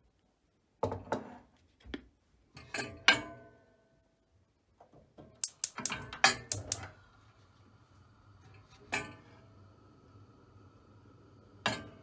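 Hard clanks and knocks of kitchen cookware against a stove: a few single clanks, a quick run of them about five to seven seconds in, then a faint steady hum starts up under two last clanks.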